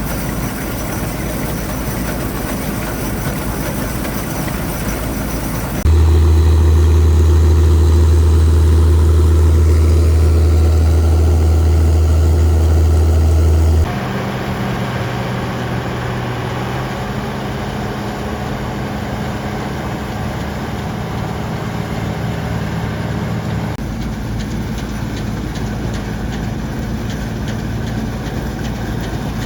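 Farm machinery engines running steadily in several joined clips, with abrupt changes in sound about 6, 14 and 24 seconds in. The section from about 6 to 14 seconds is the loudest, dominated by a deep, even hum.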